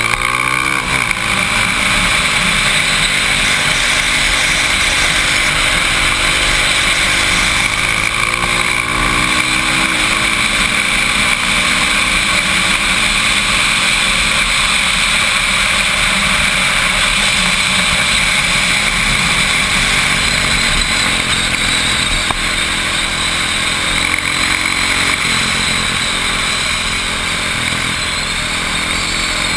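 Motorcycle engine running hard under acceleration, heard from on the bike, under a steady rush of wind over the microphone. The engine note climbs about a second in and again near the end.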